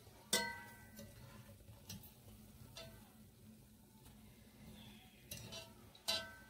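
Slotted spoon knocking against a pot of frying oil: a sharp clang that rings about a third of a second in, a few lighter taps, and another ringing knock near the end.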